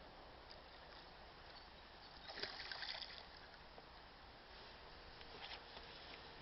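A brief splash of water about two and a half seconds in, with a few faint clicks and otherwise near silence.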